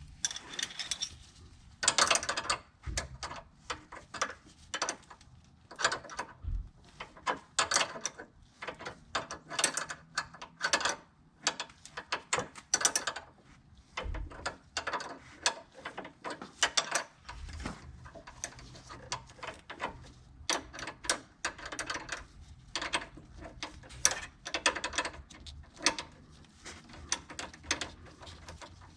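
Metal hand tools being worked on the car's brake line repair: irregular sharp clicks and clinks, some in quick runs.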